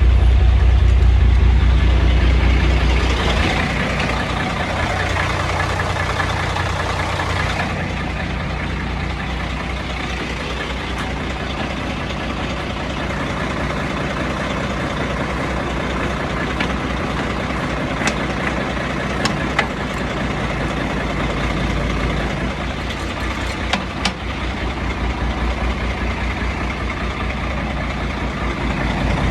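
Heavy truck's diesel engine running steadily, louder for the first few seconds and then settling to a lower, even drone, with a few faint clicks later on.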